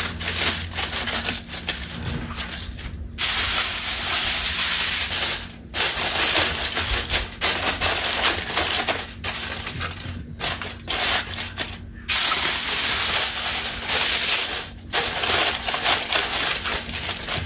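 Aluminium foil crinkling and crackling as it is pressed and crimped around the rim of a clay pot, in stretches of a few seconds broken by short pauses.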